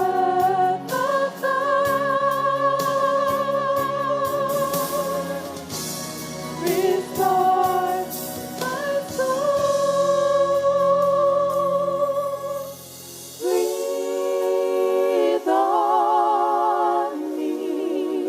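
Gospel vocal group singing long held notes in close harmony with vibrato, over a soft backing. About 13 seconds in, the low accompaniment drops out and the voices carry on alone.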